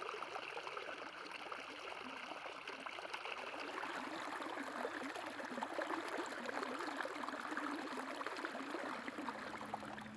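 Floodwater splashing and gurgling as it spills over a curb edge into a flooded gutter, then running along the gutter in a steady rush.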